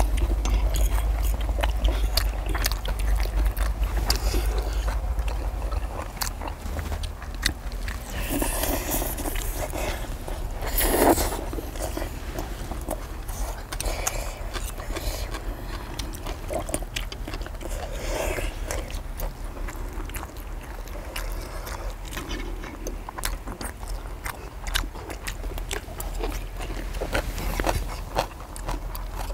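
People chewing hamburger steak with forks and knives clicking and scraping on a cast-iron cauldron-lid griddle. A low steady rumble lies underneath, strongest in the first few seconds.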